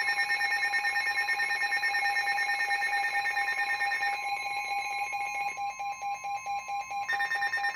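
Weather radio receiver's electronic alert alarm, a rapidly pulsing beep, sounding over the steady NOAA Weather Radio 1050 Hz warning alarm tone; it signals that a new warning is about to be broadcast. The beep's tone shifts slightly twice midway.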